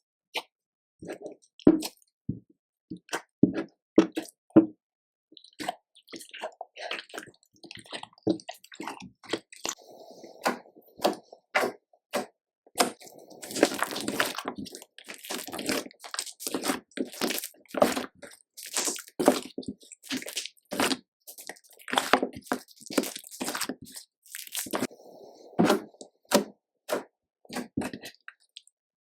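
Slime being kneaded, stretched and folded by hand, giving irregular wet squishes and many small popping clicks as air pockets burst, thickest around the middle and again a little before the end.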